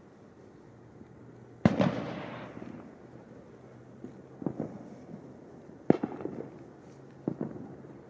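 Fireworks going off around town: a loud bang about one and a half seconds in that echoes and fades away slowly, then a smaller double pop, another loud bang with a short echoing tail, and a last bang near the end.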